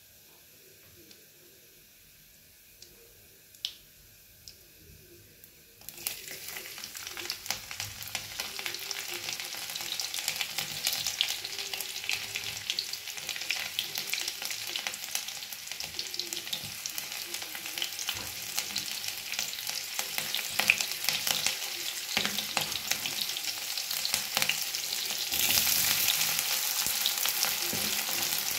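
Oil in a kadhai with cumin seeds giving a few faint pops, then about six seconds in chopped aromatics hit the hot oil and start sizzling and crackling as they fry. Near the end chopped onions go in and the sizzle turns suddenly louder and hissier.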